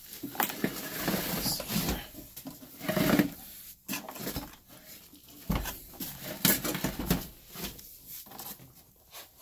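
Irregular rubbing, scuffing and knocks: handling noise from a hand and a handheld camera moving over the plastic shroud of a portable air compressor. The compressor is not running; there is no steady motor sound.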